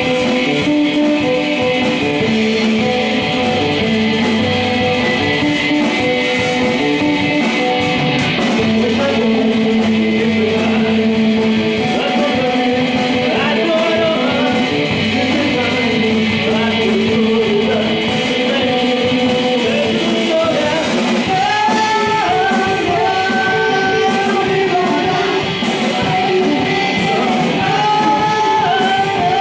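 Live rock band playing loudly: Stratocaster-style electric guitars and drums, with singing. A higher melody line comes in about two-thirds of the way through.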